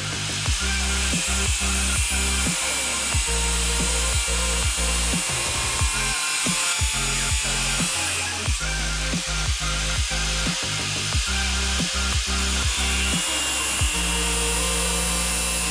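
Angle grinder cutting a small piece of steel plate, a steady high hiss of the disc on metal, under electronic background music with a steady beat.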